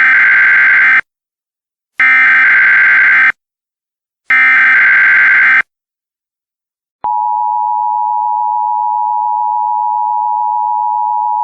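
Emergency Alert System header: three bursts of warbling digital data tones, each about a second long and a second apart. About seven seconds in, the steady two-tone EAS attention signal starts and holds, announcing an alert.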